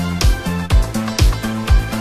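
Background music with a steady kick drum about two beats a second under a bass line.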